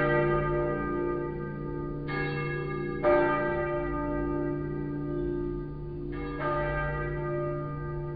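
Church bells of the Lindenkirche ringing a peal: new strikes about two, three and six seconds in ring out over the lingering low hum of the bells, the strike about three seconds in the loudest.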